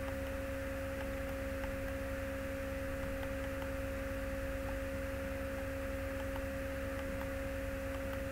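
Steady electrical hum with a constant higher pure tone over it, from the recording setup, with faint short mouse clicks now and then.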